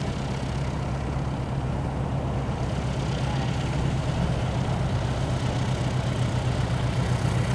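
Lycoming IO-320-B1A four-cylinder engine of an RV-6 homebuilt plane running at idle while taxiing, propeller turning. It grows gradually louder as the plane comes closer.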